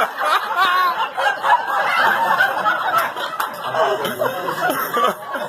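People chuckling and laughing, mixed with low talk.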